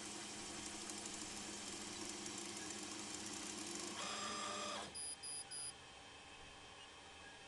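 Laser engraver running with a steady mechanical hum while engraving a glass turned on a rotary attachment. About four seconds in, a louder whirr follows as the head moves off, then three short high beeps as the job ends, leaving a quieter fan hum.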